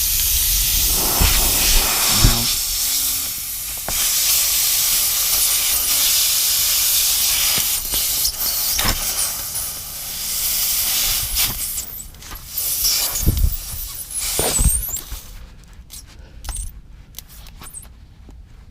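Air hissing loudly out of a tire's nail puncture with the reamer pulled out: the tire losing pressure through the open hole. The hiss drops out briefly a few times and stops near the end, leaving small clicks and handling noise.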